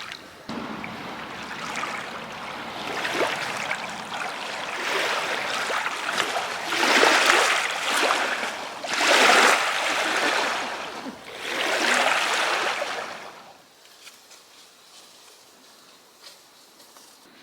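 Running water splashing, coming in uneven surges that are loudest about seven and nine seconds in, then stopping about thirteen and a half seconds in.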